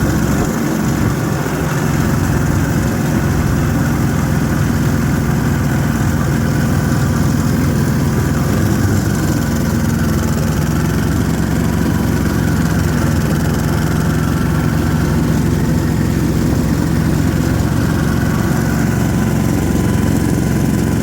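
Yanmar diesel engine of an Ockelbo snowmobile running steadily as the sled rides along.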